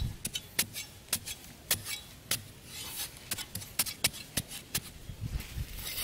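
Irregular sharp clicks and light scraping, about two or three a second, from hands working loose, dry sandy soil and stones.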